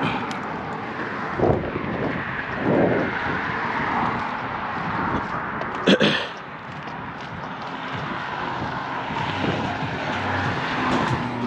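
Steady rush of traffic passing on the neighbouring highway bridge, swelling and fading as vehicles go by. There are a few low knocks of handling, and a sharp knock about six seconds in.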